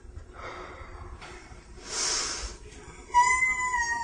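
A short hiss, then about three seconds in a loud, held high musical note sets in and holds steady.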